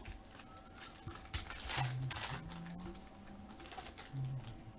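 Trading cards being handled and a foil card-pack wrapper crinkling, an uneven rustle with small clicks, busiest a second or two in.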